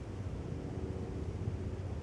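Low, steady rumble of wind buffeting the microphone outdoors; no woodpecker drumming is heard.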